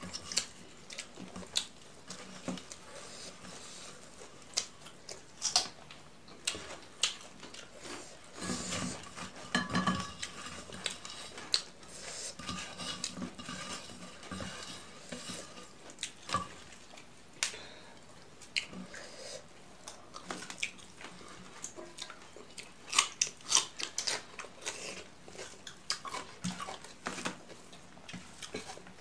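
Clicks and clinks of fingers and food against steel and ceramic plates as rice is mixed by hand and mustard leaves are handled and torn. It is a scattered run of sharp ticks, with a denser, louder cluster about three-quarters of the way through.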